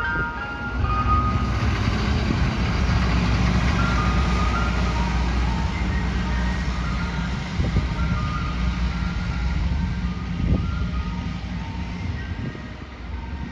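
Ice cream truck engine running as it drives past, with its chime jingle playing from the loudspeaker above the engine; the sound drops away near the end as the truck moves off.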